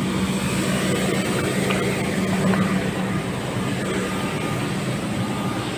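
Comeng electric suburban train running, a steady hum over a continuous rushing noise that swells slightly about halfway through.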